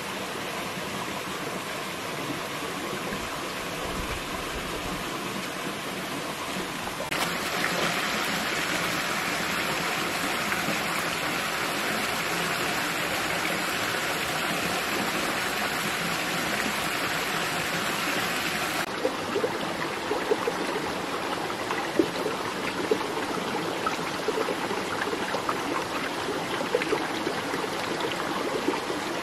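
Steady rushing of a rocky forest stream, getting abruptly louder about seven seconds in and easing back a little later. In the last ten seconds scattered light crackles and rustles of someone moving through undergrowth sit over the water.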